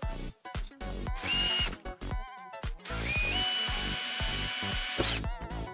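Cordless drill running as it bores into a small clear plastic piece: a short burst about a second in, then a longer run from about three seconds that steps up in pitch and stops suddenly near the end. Background music with a steady beat plays throughout.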